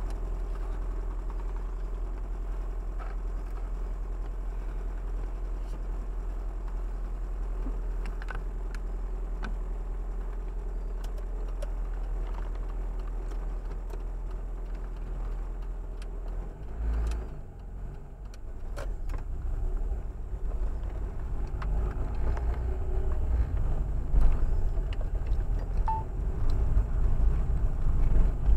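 Car engine idling steadily, heard from inside the cabin, with a few faint clicks. About 17 seconds in there is a brief knock, then the engine and road rumble grow louder as the car pulls away slowly.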